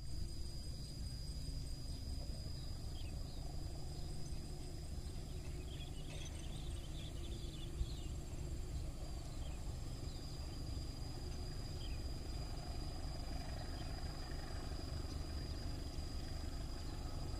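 Outdoor rural ambience: a steady low rumble, a thin constant high whine, and a few faint chirps a few seconds in.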